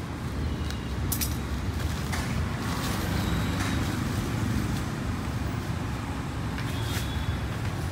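Steady low rumble of road traffic, with a few sharp clicks and knocks scattered through it.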